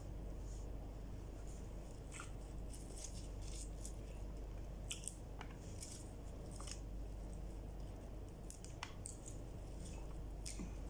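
Faint scattered clicks and rustles of someone eating rice by hand and pulling leafy greens off a plate, over a steady low hum.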